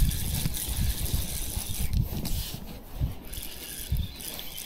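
Fishing reel being cranked as a hooked fish is reeled in on a bottom rod, with uneven low knocks of rod and reel handling that ease off somewhat after halfway.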